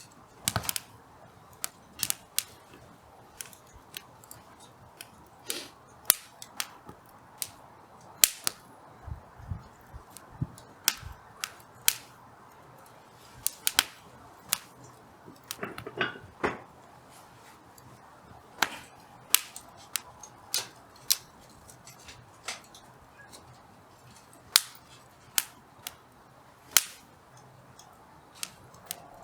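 Hardwood firewood burning, crackling with irregular sharp pops, some in quick clusters and some a second or more apart, over a faint steady hiss.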